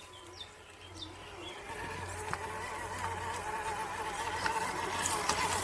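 Electric motor and gear drive of a radio-controlled crawler truck whining, the pitch wavering up and down with the throttle. It grows steadily louder from about a second in, with a few light ticks.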